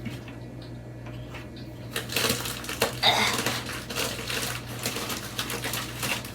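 Items in a kitchen cabinet being rummaged through: a run of light clicks, knocks and rustles starting about two seconds in, over a steady low hum.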